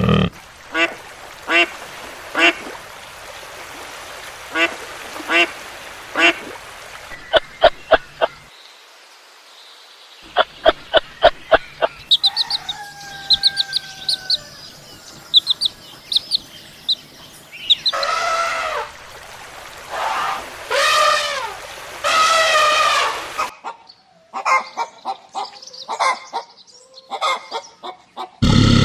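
Poultry calls in short separate bursts: rows of quick sharp calls at first, high short chirps in the middle, then three or four loud honking calls about two-thirds through, and a few more short calls near the end.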